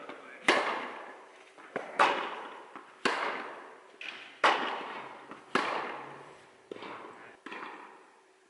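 Tennis ball being struck by rackets and bouncing on the court during a rally, about seven sharp pops roughly a second apart, each trailing off in a long echo in the big indoor tennis hall. The last two pops, near the end, are softer.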